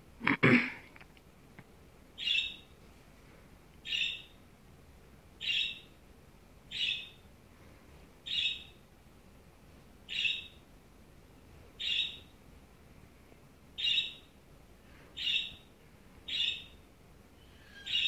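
Yellow-crested white cockatoo calling: the same short call repeated about every second and a half, roughly ten times, after a louder burst about half a second in.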